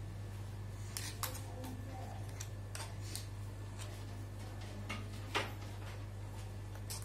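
A metal spoon scraping and tapping against a steel mixer jar and a plastic bowl as ground flaxseed powder is spooned out: a scatter of light clicks, the sharpest about five seconds in, over a steady low hum.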